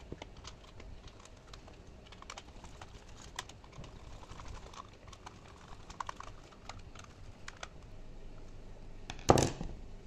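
Small screwdriver driving screws into the plastic back casing of a Mercedes R107 speedometer: scattered light clicks and scrapes of metal on plastic, with one louder knock near the end.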